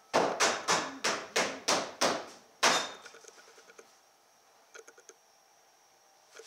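Hammering: eight sharp blows, about three a second, each ringing briefly, the last after a slightly longer gap. A few faint light taps follow about two seconds later.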